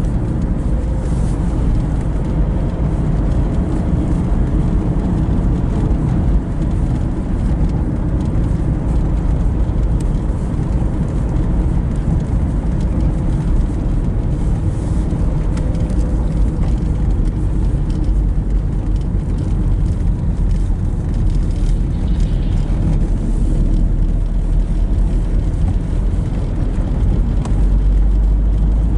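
Steady engine and road rumble inside a diesel car's cabin while driving, with a faint whine drifting slightly in pitch.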